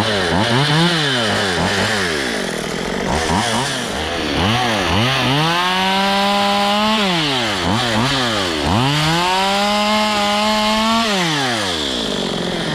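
Stihl MS192 TC two-stroke chainsaw running and being revved: several quick blips of the throttle, then two longer runs at full speed of about two seconds each, dropping back to idle between and after them.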